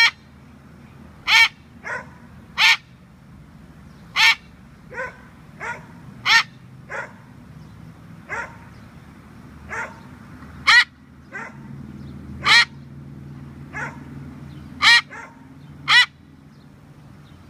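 Moluccan cockatoo imitating a dog's bark: about eighteen short, harsh barks, loud ones mixed with softer ones, roughly a second apart.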